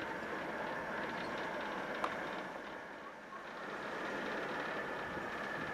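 Diesel shunting locomotive hauling a brake van slowly past, its engine and wheels running steadily, with one sharp click about two seconds in.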